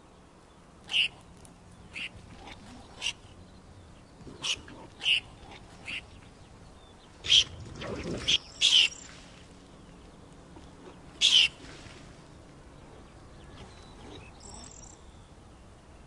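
Common hamster giving short, sharp defensive screeches again and again at irregular intervals, the loudest about seven, nine and eleven seconds in. It is the threat call of a cornered hamster standing up to a predator.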